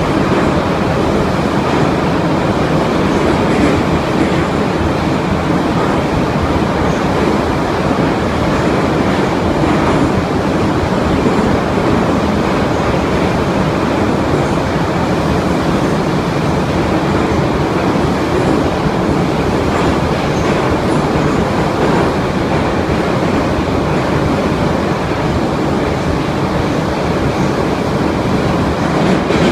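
Subway train running between stations, heard from inside the car with the doors shut: a steady, loud running noise from the wheels and running gear.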